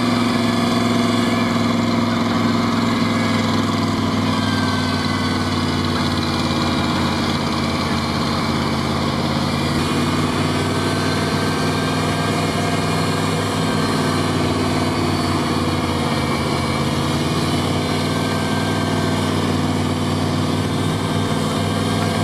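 GAZ-69's engine running steadily at low revs, stuck in deep swamp mud, with no strong revving.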